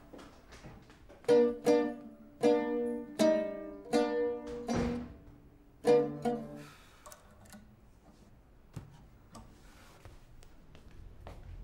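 Oud plucked with a pick: a short phrase of single ringing notes at uneven intervals, some repeated, which breaks off a little past halfway. After that only faint handling sounds and one light knock.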